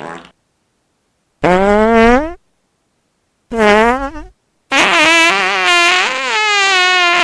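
Three fake fart sounds played one after another: a rising one of about a second, a shorter one that dips and rises, then a long wavering one that is still going at the end.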